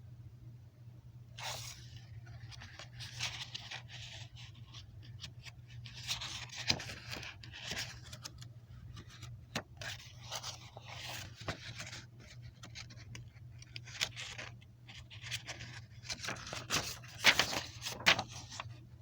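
Irregular rustling and scraping handling noise with scattered sharp clicks, in bursts that come and go and peak near the end, over a steady low hum.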